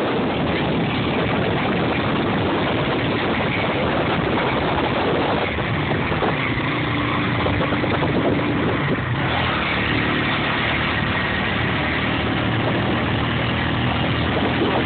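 Motorcycle engine running steadily while the bike rides along a bumpy dirt road, under a dense, even rush of wind and road noise.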